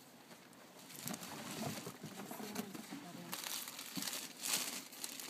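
Clear plastic flower sleeves crinkling and rustling as sleeved hydrangea bunches are handled at a cardboard packing box. The crackles get louder about three and a half and four and a half seconds in.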